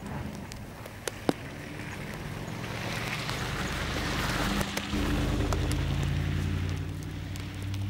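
Pickup truck driving past on a snow-covered street: its tyres hiss through the snow and slush, swelling to a peak about halfway through as it passes, with the low hum of its engine carrying on as it pulls away. A couple of sharp clicks come about a second in.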